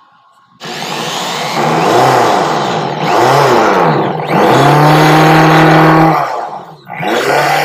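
Cheap no-brand corded electric drill running in several bursts while driving a screw into a wooden board. Its motor whine rises and falls in pitch, holds steady for a stretch, stops, then comes back in one short burst near the end.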